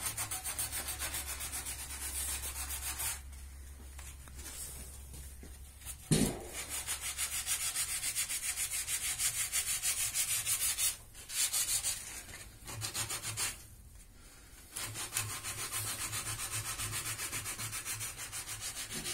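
Sandpaper rubbed by hand over a pine bed frame in quick, rhythmic back-and-forth strokes, stopping briefly a few times. There is a single knock about six seconds in.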